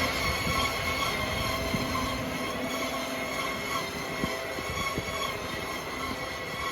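KVE 2.12 cabbage harvester running steadily as it works through a white cabbage crop: a constant mechanical rumble with several steady high whines on top and a few faint knocks.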